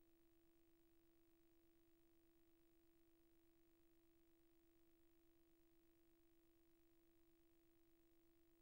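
Near silence, with only a faint, steady electronic hum at one pitch.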